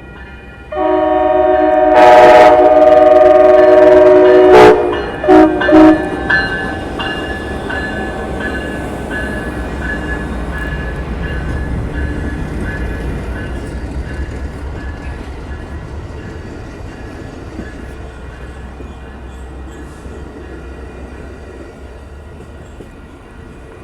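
Amtrak passenger train horn sounding one long blast of about four seconds, then two short blasts, followed by the low rumble of the passing train slowly fading away.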